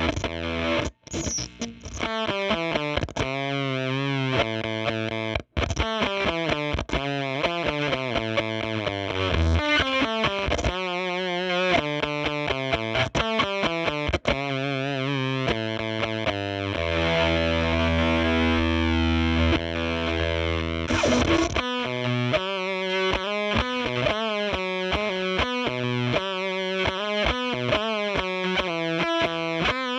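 Electric guitar played through a Jext Telez Dizzy Tone V5 "triple black glass" germanium fuzz pedal (OC44 transistors), giving a spitting fuzz tone. Quick distorted riffs and single notes with a few string bends, and a chord left ringing for several seconds past the middle.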